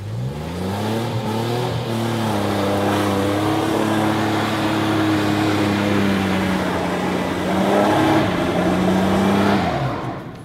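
Compact Chevy pickup truck's engine revving hard as it drives through a wet, muddy field: the pitch climbs over the first two seconds, holds high, dips and climbs again about eight seconds in, then drops away just before the end.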